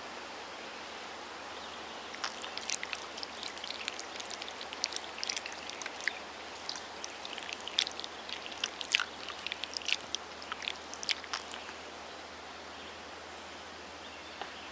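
Steady running-water ambience, with a run of irregular sharp crackling clicks from about two seconds in until about eleven seconds in.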